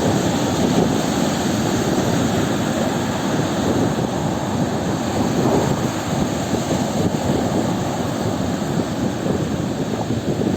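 Sea waves washing and surging in a continuous, even rush of surf, with slight swells in loudness and no separate breaks.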